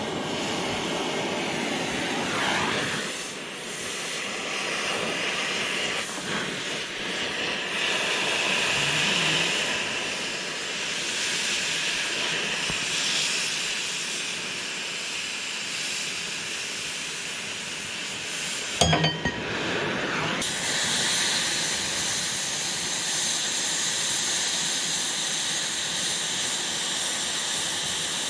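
Oxy-fuel cutting torch hissing steadily as it cuts through 1/8-inch flat steel bar. There is one sharp knock about two-thirds of the way through.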